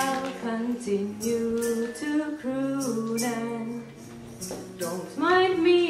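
A woman singing a slow song to acoustic guitar accompaniment.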